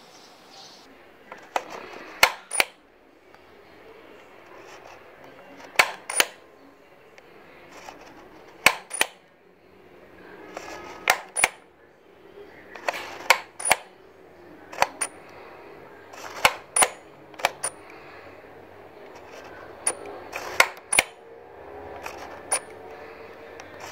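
Plastic clicker lever of a View-Master 3D Classic toy camera viewer being pressed again and again, each press giving a sharp double click and advancing to the next 3D picture. The presses come about every two to three seconds, about a dozen in all.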